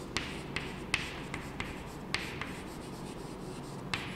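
Chalk writing on a chalkboard: a string of short, irregular taps and scratches as letters are written, several a second.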